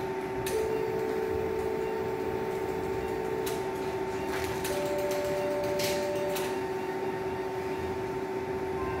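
Electrosurgical diathermy unit sounding its activation tone while a wire loop fulgurates the bladder lining. One pure tone is held for about three seconds, then a higher one for about a second and a half, over a steady two-tone electronic hum, with a few faint clicks.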